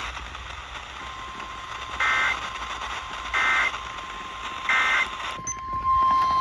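Emergency Alert System SAME header: three short bursts of screeching two-tone data, about a second and a half apart. These are followed about six seconds in by the steady 1050 Hz NOAA Weather Radio warning alarm tone, which signals that a new warning is about to be read.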